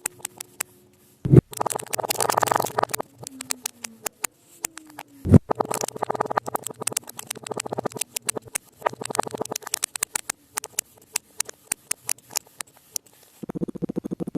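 Kinetic sand being cut and pressed with a blade: runs of crisp, fine crackling, with two sharp thumps about one and five seconds in. Near the end it turns into an even, rapid scraping crackle.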